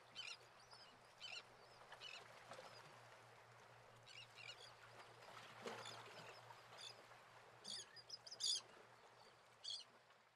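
Faint bird calls: short chirps every second or so over a quiet background.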